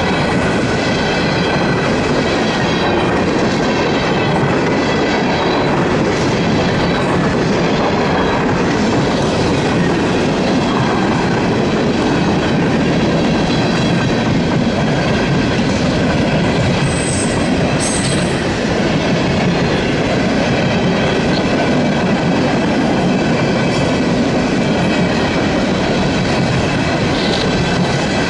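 Steel-wheeled coal hopper cars of a freight train rolling past close by: a steady loud rumble with the clickety-clack of wheels over the rail joints. Steady high-pitched wheel squeal rides over it.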